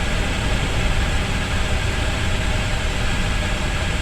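Steady hiss of static from a car radio, over the low rumble of the car.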